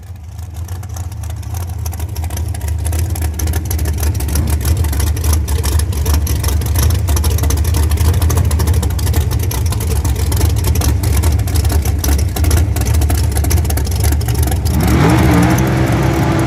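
Drag-race car engines running loud, a deep rumble that builds over the first few seconds and then holds. Near the end an engine note wavers up and down in pitch.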